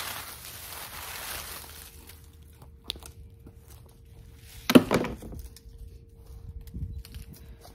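Dry leaves and dead stalks rustling as they are pulled by gloved hands from a gravel garden bed, then a few scattered footsteps and one loud thump about five seconds in.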